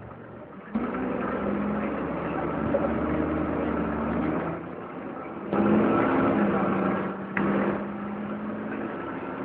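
Dennis Dart SLF single-deck bus's diesel engine, heard from inside the passenger saloon, pulling hard as the bus accelerates. The engine note steps down about four and a half seconds in, rises again a second later, and settles lower near the end as the gearbox changes up.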